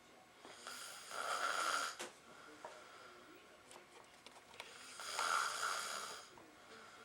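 A man snoring in his sleep: two loud snores about four seconds apart, each lasting well over a second with a buzzing tone.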